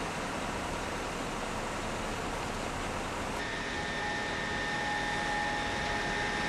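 Steady engine and machinery noise, a low rumble with hiss. About three and a half seconds in the sound changes, and a steady high whine comes in, joined shortly after by a lower steady tone.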